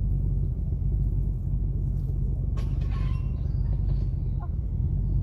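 Steady low outdoor rumble, with a brief faint higher-pitched sound about three seconds in.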